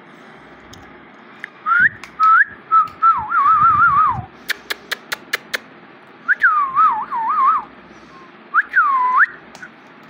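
Whistling in several clear phrases that warble and glide around one high pitch, the last a single swoop down and back up. In the middle comes a quick run of about six sharp clicks. A steady background hiss runs under it all.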